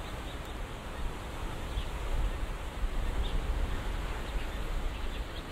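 Wind buffeting the microphone over a steady outdoor hiss, with a few faint short high chirps.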